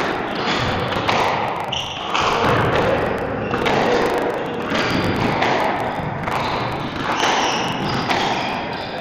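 Squash rally: the rubber ball is struck by rackets and thuds off the court walls and floor, about two echoing hits a second, with a few short squeaks of shoes on the wooden floor.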